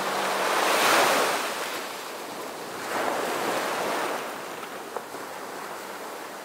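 Ocean surf breaking on a sandy beach: two waves swell and fade, about two seconds apart.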